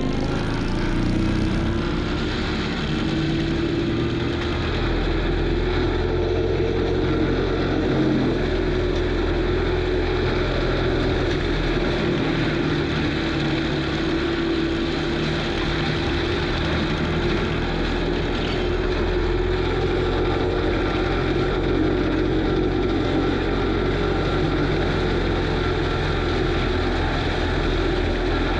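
Kubota SVL95 compact track loader's diesel engine running hard with an FAE forestry mulcher attached, a steady, unbroken machine drone with a whine that wavers slightly in pitch.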